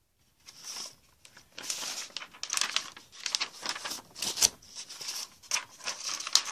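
Sheets of coloured paper rustling and crinkling as they are handled and sorted through, in irregular bursts with short pauses.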